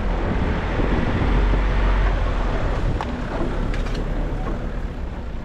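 Vehicle with its tyres let down driving on soft beach sand: a steady low engine and tyre rumble with some wind noise, easing off about halfway through as it slows to pull up.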